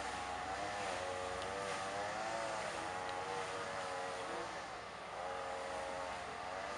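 Diesel engine of a CrossCountry HST Class 43 power car working as the train pulls away, its pitched engine note wavering up and down. The note dips briefly about five seconds in and then returns.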